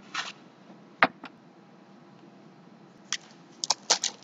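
A short hiss near the start, then a sharp click about a second in with a fainter one just after, and a cluster of light clicks and rustles near the end, over faint room tone.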